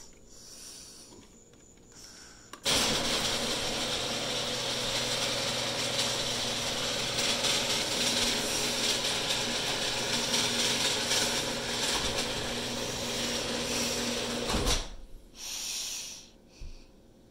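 Electric garage door opener starting suddenly and running steadily with a constant motor hum as it lowers a sectional garage door along its overhead rail, stopping abruptly after about twelve seconds with a thump as the door reaches the floor.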